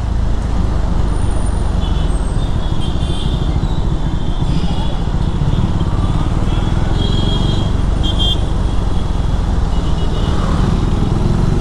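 Road noise from a KTM Duke 390 single-cylinder motorcycle being ridden in traffic: a steady low rumble of engine and wind.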